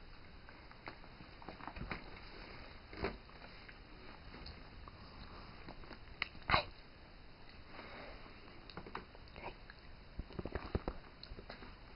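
Small, scattered eating sounds as Cheerios are eaten: soft crunches and sniffs, with one sharper, louder sound about six and a half seconds in and a quick cluster of small clicks near the end.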